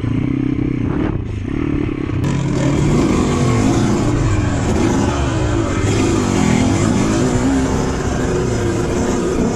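Dirt bike engine heard from a camera on the bike, revving up and down as it is ridden over rough ground. About two seconds in the sound changes abruptly to a second bike's engine, a KTM, which also rises and falls with the throttle.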